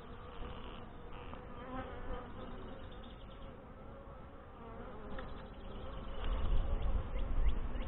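Honeybees buzzing steadily around an opened hive, a continuous hum of many wings. Over the last couple of seconds a louder low rumble of handling or wind on the microphone comes in.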